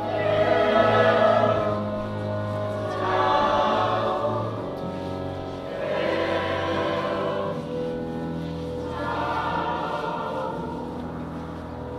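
Opera chorus singing in four swelling phrases about three seconds apart, over a sustained low accompaniment.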